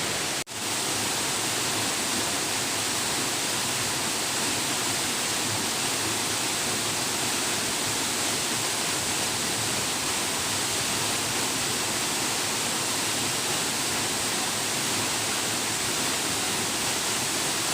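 Waterfall: a steady, unbroken rush of falling water, with a momentary dropout about half a second in.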